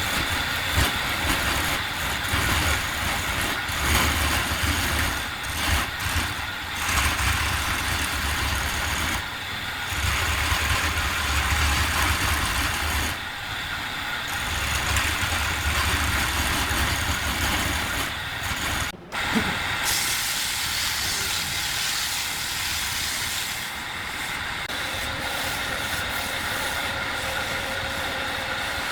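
Steady machine noise with a low hum that comes and goes, briefly cutting out about two-thirds of the way through.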